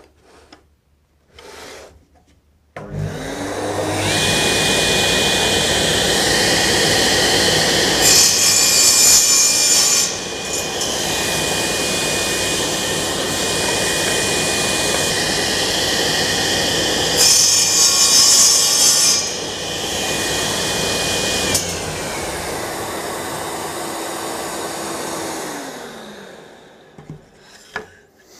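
Table saw starting up, its motor whine climbing to full speed, then making two cuts through a maple board, each a louder stretch of about two seconds. It is then switched off and winds down over a few seconds, with a few light knocks near the end.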